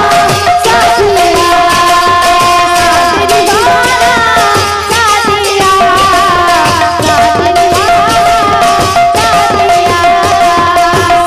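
Devotional kirtan music: a hand-played two-headed barrel drum (mridanga) beats out a rhythm under a wavering melody line and a steady held note.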